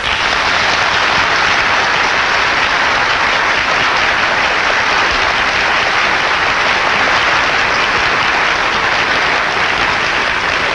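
Assembly delegates applauding: the dense, steady clatter of many hands, starting suddenly and dying away near the end.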